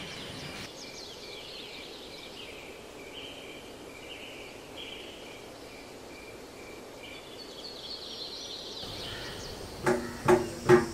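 Outdoor ambience of birds chirping and insects trilling. Near the end a barrel drum is struck three times in a steady beat, each stroke ringing briefly.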